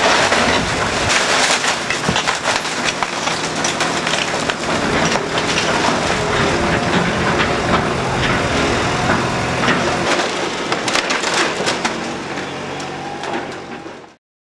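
Old theatre's wooden roof timbers cracking, splintering and crashing as the roof is pulled in by a cable, with an engine running steadily underneath. The noise cuts off suddenly near the end.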